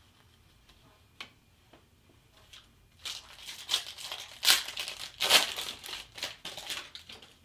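Wrapper of a Panini Prizm football card pack crinkling and tearing as it is ripped open. It is a dense crackle lasting about four seconds, starting about three seconds in after a couple of faint clicks.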